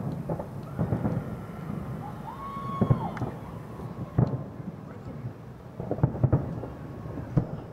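Aerial firework shells bursting, a series of sharp booms with a rolling rumble after each, coming every second or two. The loudest are about three, four and six seconds in.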